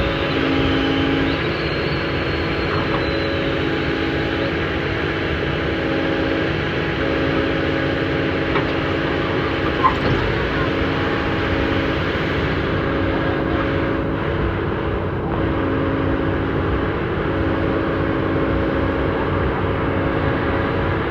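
Diesel engine of heavy earthmoving equipment running steadily, with one short sharp knock about ten seconds in.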